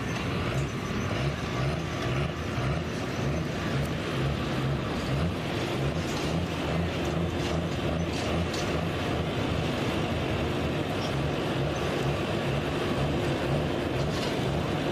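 Diesel pickup truck's engine running steadily under load while pulling the sled in a diesel truck-pulling class.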